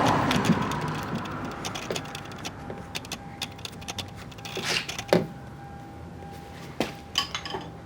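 Scattered clicks and knocks of car door-handle parts being pushed and fitted by hand inside the door, after a brief rush of noise at the start. A faint steady tone runs under the second half.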